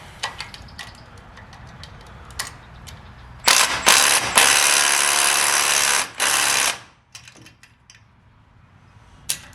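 Impact wrench running in loud bursts for about three seconds, with a short break, driving a bolt on the winch mount; scattered metal clicks of tools and hardware come before it.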